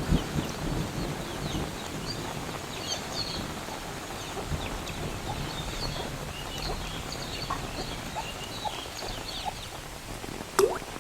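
Steady rain with the tail of a thunder rumble fading in the first second. Over it, many short high chirps, typical of birds calling in the rain, and near the end one loud drip of water.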